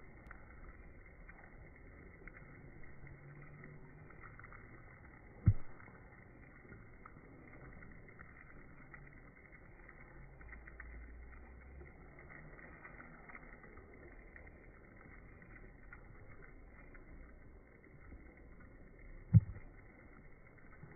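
Faint, steady outdoor hiss with light scattered ticking as wet snow falls onto a waterlogged rooftop. Two sharp thumps stand out, one about five seconds in and one near the end.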